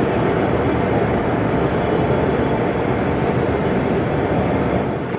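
An O gauge model train running on the layout, its steady rumble mixed with the even hubbub of a busy exhibition hall.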